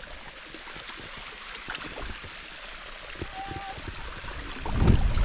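Clear shallow sea water lapping and washing at the shoreline, with a few small clicks. Near the end, wind gusts buffet the microphone with a low rumble.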